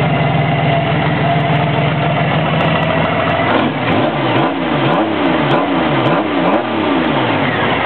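Honda Gold Wing GL1800's flat-six engine running through Harley-Davidson straight-through exhaust pipes: a steady loud idle, then a series of quick throttle blips that rise and fall in pitch from about three and a half seconds in, settling back to idle near the end.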